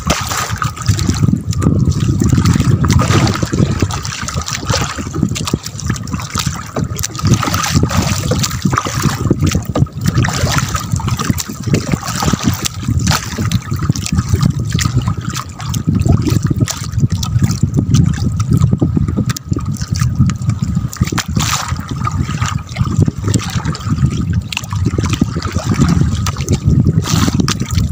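Sea water sloshing and trickling, irregular and continuous, with a faint steady high tone underneath.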